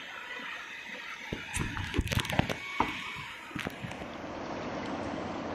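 Steady rush of shallow river water over rocks. From about a second in, a quick cluster of sharp knocks and clatters runs for a couple of seconds before the steady rush carries on alone.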